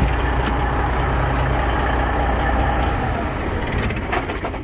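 Detroit Diesel Series 60 inline-six truck engine idling, then switched off about three seconds in and running down.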